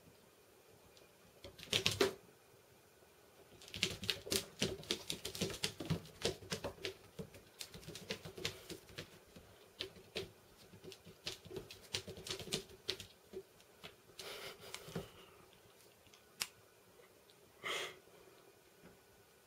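A kitten's claws clicking and skittering on a vinyl floor as it scrambles and spins in circles, in rapid irregular runs of clicks with a few louder scuffles.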